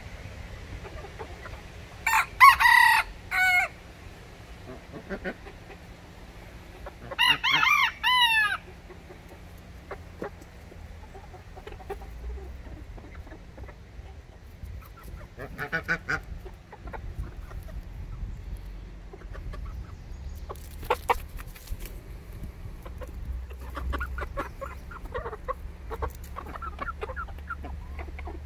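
Rooster crowing twice, about five seconds apart, the loudest sounds. Between and after the crows, chickens cluck softly close by, with a few sharp taps.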